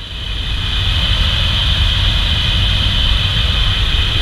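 Steady drone of a propeller aircraft's engine, heard inside the jump plane's cabin.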